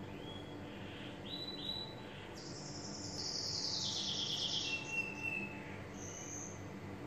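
A bird chirping: a few short high calls, then a louder trill about two and a half seconds in that falls in pitch before stopping, and one more short call near the end, over a steady low hum.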